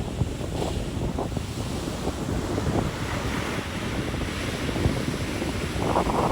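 Ocean surf washing onto a beach, with wind buffeting the microphone. The surf swells about halfway through.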